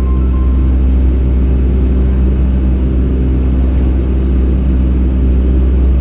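Steady cabin drone inside a Boeing 757-200 airliner in flight: a deep engine and airflow rumble under a steady hum of several tones.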